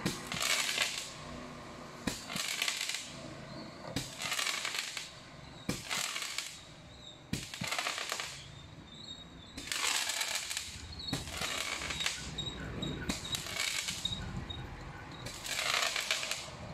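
Crackling Roman candle firing shot after shot: a pop roughly every one and a half to two seconds, each followed by about a second of dense crackling as the ball bursts.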